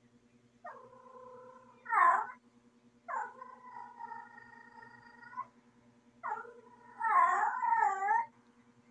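Female cat in heat calling: three drawn-out yowls of about two seconds each. The middle one holds a steady pitch; the first and last swell at the end into a loud, wavering wail.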